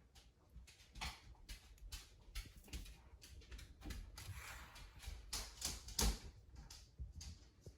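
Coffee scoop digging into a container of ground coffee and tipping the grounds into the drip coffee maker's filter basket: irregular scrapes, taps and soft rustles, with the loudest knock about six seconds in.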